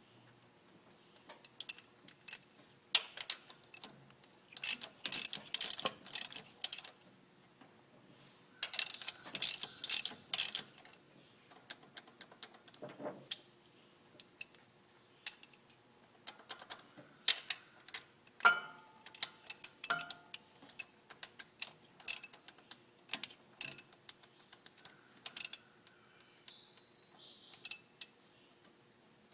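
Irregular metallic clicks and clanks of hand tools, with quick runs of ratchet clicking, working on the valve gear of a Chevrolet 348 V8 during a valve adjustment.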